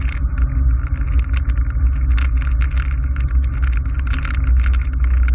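A light single-engine aircraft's piston engine and propeller droning steadily, heard inside the cockpit, with a fast irregular crackle over it.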